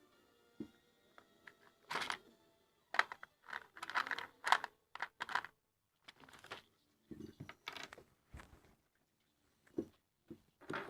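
Irregular rustling, crackling and clicks of hands handling wire and small parts at a workbench while preparing a drone's power distribution harness.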